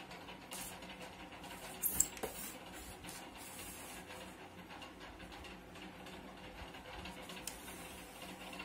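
Faint handling sounds of hands working balls onto a thermocol model board, with a brief knock about two seconds in, over a steady low hiss.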